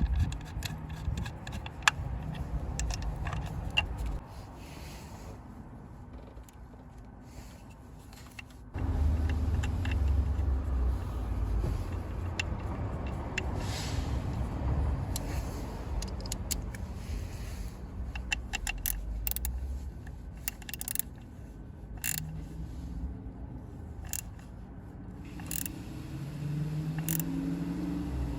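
Scattered clicks, taps and short scrapes of hands and tools fitting a car's engine control module into the engine bay, over a low rumble that drops away for about five seconds near the start and then returns.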